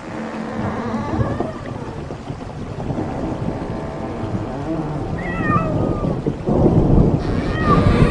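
Horror sound effect: a deep rumble that builds in loudness, with short high cries that fall in pitch about five seconds in and again near the end.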